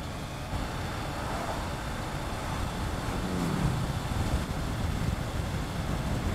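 Wind rush and road noise of a Triumph Tiger 900 GT Pro being ridden, its 888 cc inline-three engine running underneath. The engine note drops once about three seconds in.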